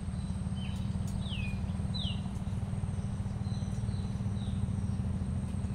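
Wind rumbling on the microphone, under a steady high insect drone. Over it come several short falling bird whistles: three in the first two seconds, the third the clearest, and fainter ones around four seconds in.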